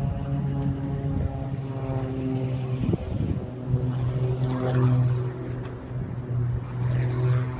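Propeller engine of an aerobatic display plane in flight, a steady drone whose pitch shifts a few times as it manoeuvres.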